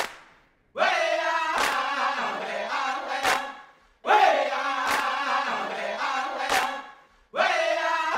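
A group of voices chanting in three phrases, each about three seconds long with short breaks between them, over a sharp struck beat about every second and a half. A single sharp hit opens the passage and dies away before the chanting begins.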